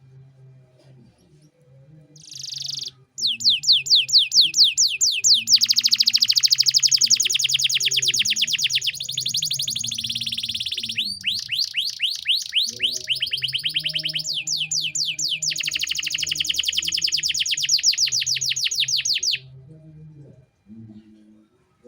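Domestic canary singing: long fast trills of rapidly repeated high falling notes, one trill run straight into the next, changing to a new trill about halfway. The song starts about three seconds in and stops a couple of seconds before the end.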